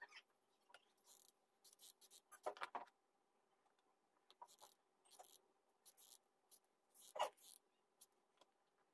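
Faint, scattered rustling and handling noises as thread and a cardboard flower base are moved about, with two brief louder sounds about two and a half and seven seconds in.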